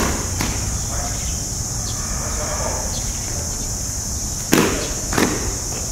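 A steady high-pitched insect drone of cicadas, with a few sharp impacts from the two tai chi practitioners' sparring, the loudest two near the end, about half a second apart.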